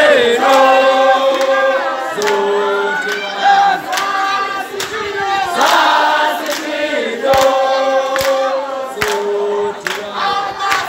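A crowd of young people singing together like a choir, many voices holding long notes that shift every second or two, with sharp knocks now and then.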